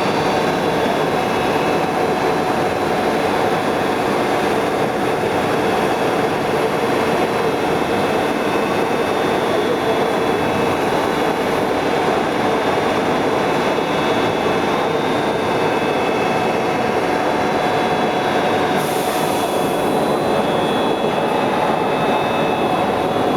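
Metal-spinning lathe running steadily with a constant mechanical noise and a few steady whining tones; a brief hiss joins in about nineteen seconds in.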